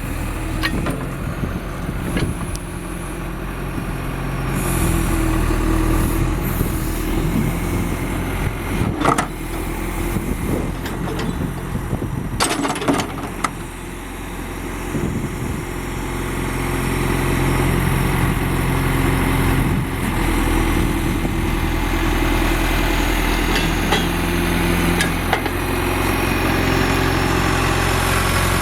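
John Deere 510C backhoe's diesel engine running, its speed and level rising and falling a few times. There are a few sharp knocks about a third of the way in and again near the middle.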